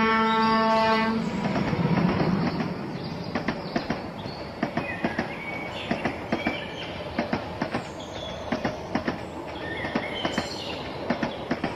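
Large-scale model train: a horn sounds for about the first second and then stops, and the train rolls on with a run of quick, irregular clicks as its wheels pass over the track joints.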